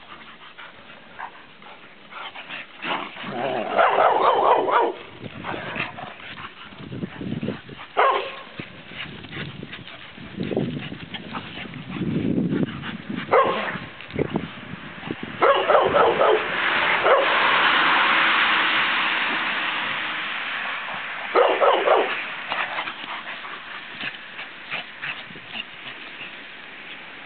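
Puppies yipping, barking and whimpering in rough play, in short bouts several times. A smooth whooshing noise swells and fades for a few seconds past the middle.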